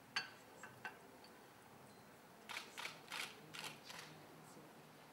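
Faint camera shutter clicks: a few single clicks near the start, then a quick run of about five in a row around the middle.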